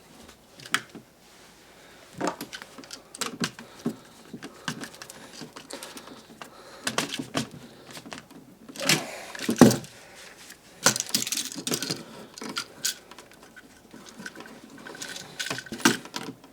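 Irregular small clicks, rattles and rustles of hands and pliers working copper wire onto an electrical outlet's screw terminals, with a few louder handling knocks near the middle.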